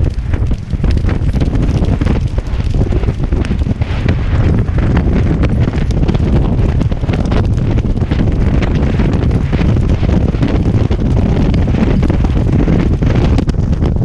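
Heavy, continuous wind buffeting on a jockey's helmet-camera microphone at racing speed, with the thudding hoofbeats of the galloping racehorse on turf underneath.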